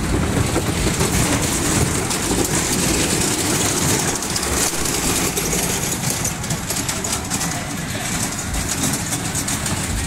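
Carnival kiddie ride with a toy-train car turning around its centre pole, heard from on board: a steady, dense mechanical noise of the ride running.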